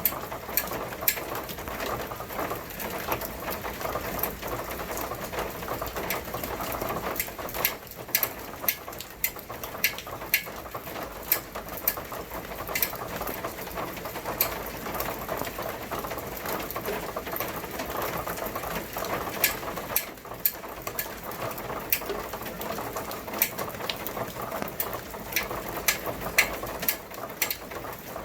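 Rain falling steadily, with irregular sharp drops ticking and clicking on top of the even patter of the rain.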